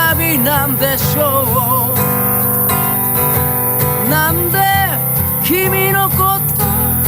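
A song: strummed acoustic guitar with a singing voice carrying the melody.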